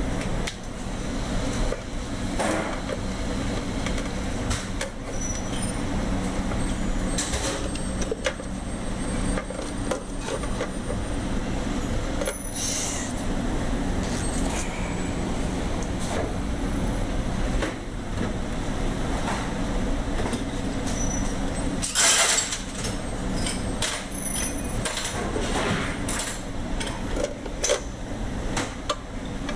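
Hand tools clinking, knocking and scraping on metal while a garbage disposal unit is worked on, over a steady low machine hum. One louder clank, with a brief hiss, comes about three quarters of the way through.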